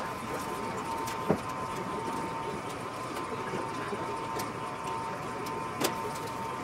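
Two short sharp metallic knocks about four and a half seconds apart as an aluminium aileron is handled and fitted to the wing, over a steady background hum with a thin high whine.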